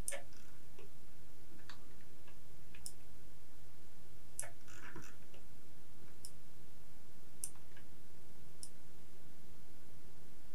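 Computer mouse clicking, single sharp clicks every second or so, over a steady low hum.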